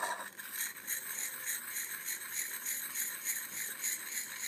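Lansky sharpening hone rubbed quickly back and forth on the chisel-ground steel edge of an Emerson Roadhouse knife near its tip: a rhythmic scraping of stone on steel, about three strokes a second.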